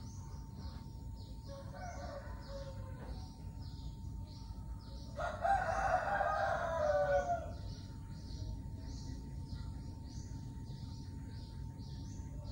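A bird calls once loudly, a long call of about two seconds starting about five seconds in, with a fainter call a few seconds earlier. A high chirping pulses about three times a second throughout.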